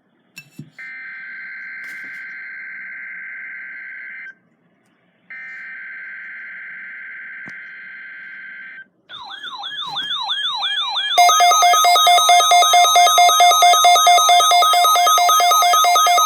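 Emergency Alert System weekly test signalling: two bursts of SAME header data tones, each a steady harsh digital screech lasting about three and a half seconds with a one-second gap between them. About nine seconds in, a warbling siren-like alert tone starts, and about two seconds later a louder, rapidly pulsing alert tone joins it.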